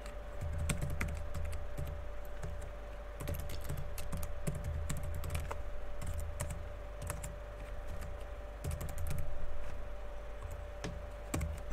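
Typing on a computer keyboard: irregular runs of key clicks with soft low thuds, over a faint steady hum.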